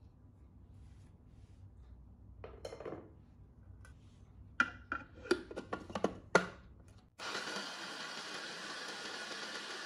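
A quick run of sharp clicks and knocks, then a food processor's motor starts suddenly and runs steadily, its blade chopping white bread into crumbs.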